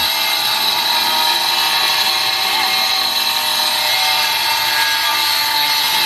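A power tool motor running steadily at constant speed, with a high whine over a dense noise.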